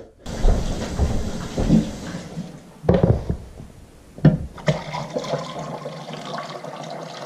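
Water pouring from a glass jar into an electric canner's pot to cover the canning jars, a steady rushing splash, with a few knocks a few seconds in.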